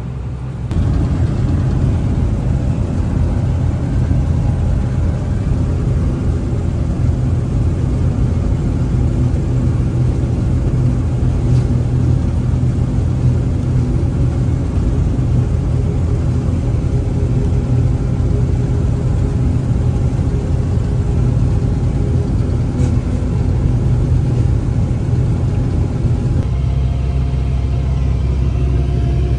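Combine harvester's diesel engine running steadily at working speed, with a change in its low note near the end.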